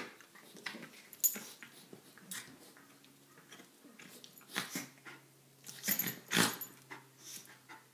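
A Scottish Terrier and a poodle play-fighting, with irregular short bursts of dog sounds and scuffling on the sofa cushions; the loudest bursts come about a second in and around six seconds in.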